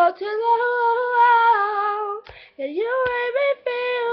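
Young female voice singing unaccompanied, holding long wavering vowel notes. There is a brief break a little over two seconds in, then another held phrase.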